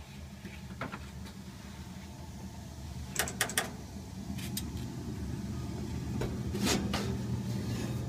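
Home gas furnace running with a low, steady mechanical hum that slowly grows louder, with scattered sharp clicks and light knocks, three in quick succession a little past the middle and several more near the end.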